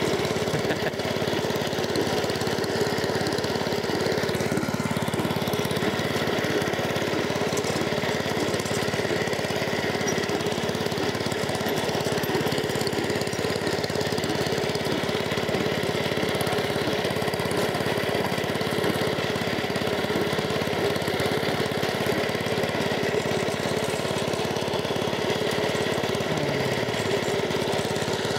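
Self-propelled cylinder lawnmower's small petrol engine running steadily as the mower is worked across the grass, on a new carburettor with its mixture screw leaned to about three and a half turns out.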